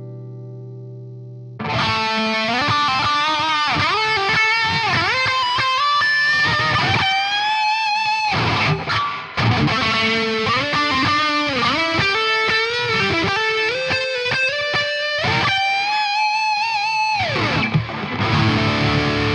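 Fernandes Revolver electric guitar, through an amp simulator, playing a lead line with string bends and vibrato after a ringing chord fades out. Near the end a held note is dived down in pitch with the tremolo arm, and low distorted chords follow.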